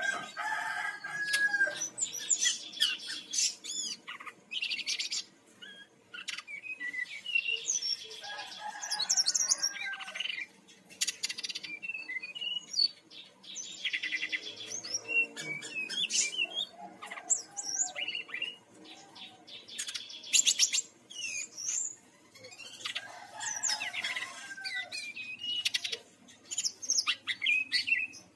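Brown-chested jungle flycatcher singing in varied, fast phrases packed with trills and quick glides, coming in bursts a second or two long with short pauses between them.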